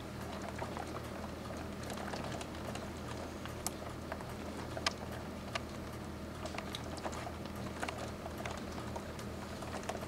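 Rain pattering during a thunderstorm: scattered drops tapping irregularly on a hard surface, a couple of them louder near the middle, over a steady low hum.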